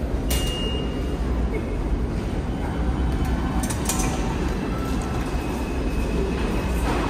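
New York City subway train running: a steady low rumble, with a few sharp metallic clicks.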